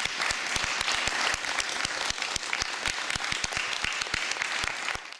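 Audience applauding, a dense steady patter of many hands clapping, which cuts off suddenly at the end.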